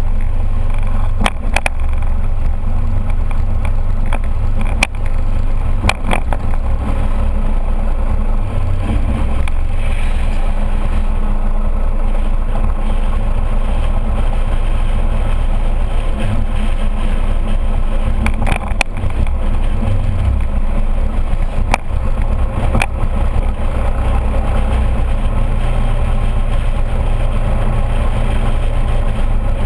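Ride noise from a GoPro on a scooter's handlebar mount while riding: the steady low rumble of the scooter's engine mixed with wind on the microphone. A few sharp knocks come from the shaky camera mount.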